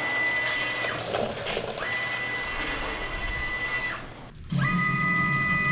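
Hypertherm Powermax 45 XP plasma cutter on a CNC table: a steady air hiss with a thin high whine that stops about a second in and comes back. About four and a half seconds in, a louder hissing whine with a deep hum underneath takes over as the torch cuts steel sheet.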